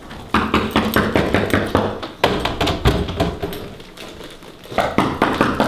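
A quick series of sharp taps, about five a second, in three runs with short pauses about two and four seconds in.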